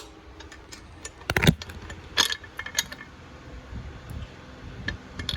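Scattered metallic clicks and knocks from a small steel air fitting and bench tools being handled, with the sharpest knocks about one and a half and two seconds in; no drill is running.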